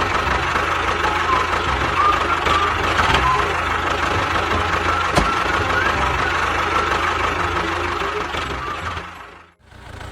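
A small engine running steadily with a low hum and a few sharp clicks, cutting off abruptly near the end.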